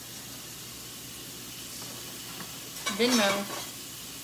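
A metal utensil scraping and scooping roasted potato pieces on a hot, foil-lined sheet pan, over a steady sizzling hiss, with a few light clicks. About three seconds in comes a short voiced sound from the cook, rising then falling in pitch.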